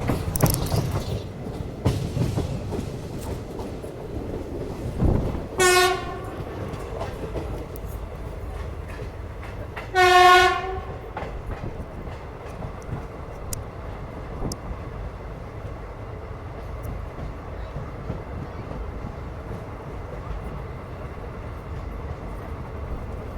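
Express passenger train running, its coaches rumbling and clattering over the rail joints. The locomotive horn sounds twice: a short blast about six seconds in, then a louder, longer blast about ten seconds in.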